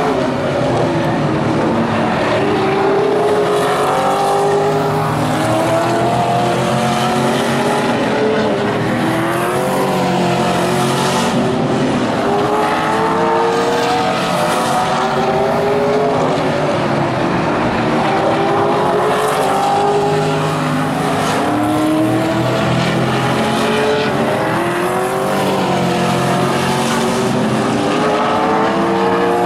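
Several vintage modified race cars' engines running hard at racing speed, their pitch rising and falling over and over as the cars accelerate and lift, with more than one engine heard at once.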